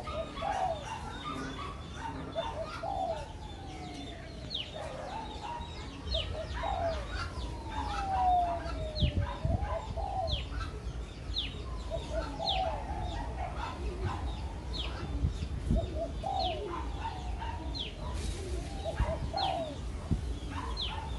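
Spotted dove cooing, a run of short low coos repeated every second or two, with long falling calls and sharp high chirps from other birds around it.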